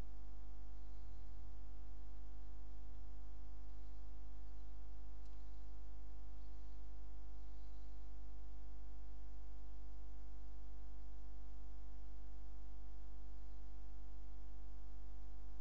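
Steady electrical mains hum: a strong low drone with a stack of fainter, unchanging tones above it, and no other sound of note.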